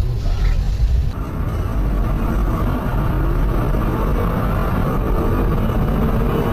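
Steady vehicle rumble of engine and road noise, as picked up by a car-mounted camera. The sound changes abruptly about a second in.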